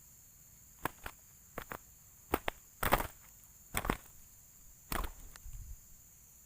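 An irregular series of sharp knocks and snaps, about a dozen over some five seconds, some single and some in quick clusters, over a steady faint high hiss.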